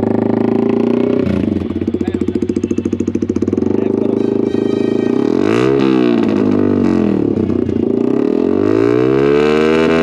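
Yamaha R15M's single-cylinder engine idling through a loud aftermarket SC Project slip-on exhaust, then revved twice, the pitch rising and falling each time, the second rev longer, near the end.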